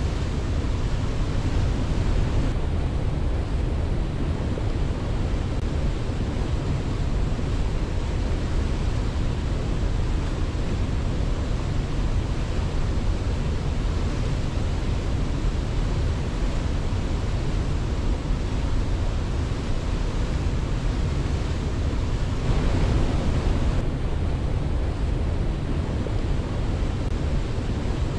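Steady rushing water, a continuous deep, even roar, with one brief swell about three-quarters of the way through.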